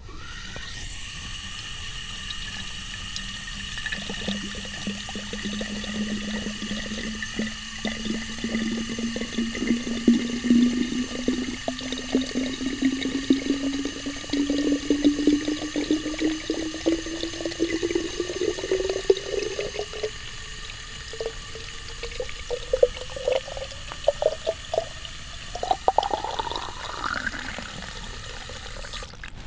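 Water from a garden hose pouring into a small buried terracotta olla, with splashing throughout. The pitch of the filling rises steadily as the pot fills, then climbs quickly near the end as the water reaches the top.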